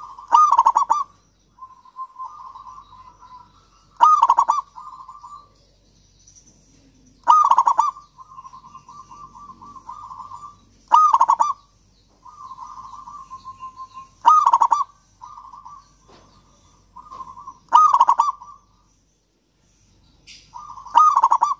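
Zebra dove (perkutut) singing: a loud cooing phrase about every three and a half seconds, seven in all, with softer rapid rolling coos in between.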